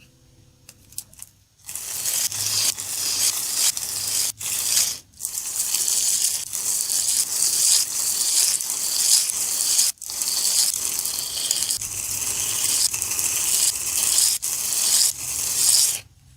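Steel knife blade being worked against an abrasive. A harsh, continuous scraping hiss starts about two seconds in, breaks briefly a few times and stops suddenly near the end.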